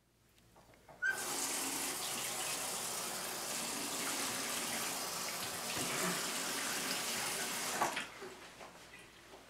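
Bathroom sink faucet running into a basin while someone washes his face. The water comes on about a second in as a steady hiss and shuts off about eight seconds in.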